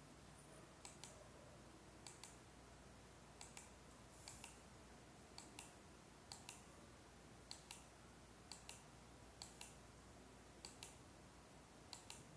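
Faint short clicks in pairs, about eleven pairs in all, roughly one pair a second, over a low steady hum.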